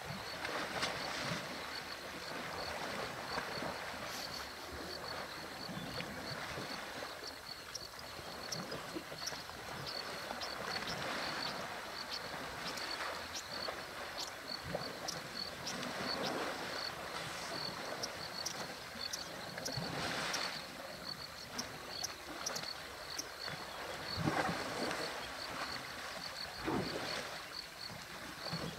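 African elephant bulls wrestling in a waterhole, water sloshing and splashing around their bodies: a steady wash of churned water with louder splashes every few seconds.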